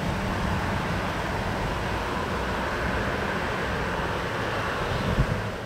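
Steady low rumble of a departing Airbus A380's jet engines, heard from a distance, with a short thump about five seconds in. The sound drops away at the very end.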